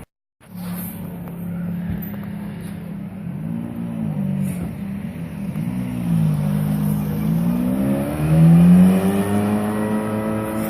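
Ferrari F430's V8 engine idling after a moment of silence, blipped twice briefly and then revved in a longer, louder rise about eight seconds in before dropping back to a steady idle.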